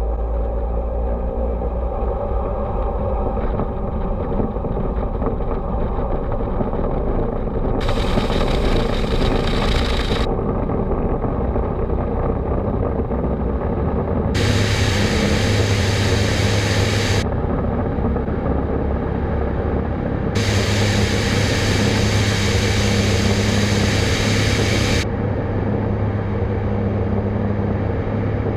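Walter turboprop engine and propeller of a Thunder Mustang running at takeoff power, heard from on board through the takeoff roll and climb-out. The steady engine noise holds a low hum throughout, while its brightness jumps abruptly up and down several times.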